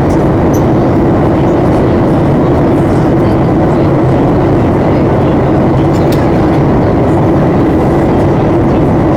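Steady cabin noise of a Boeing 737-800 in flight on approach, heard from a window seat forward of the wing: air rushing past the fuselage and the CFM56 turbofan engines running, with a steady low hum.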